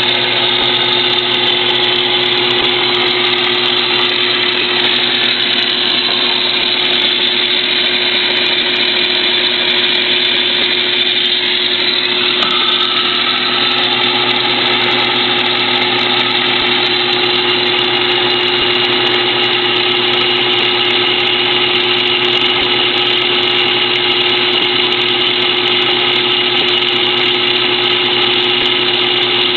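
Late-1930s Craftsman 109 series metal lathe running steadily while taking a light 0.020-inch cut on 1018 steel stock. The drive gives a steady whine made of several held tones, with one new tone coming in about twelve seconds in.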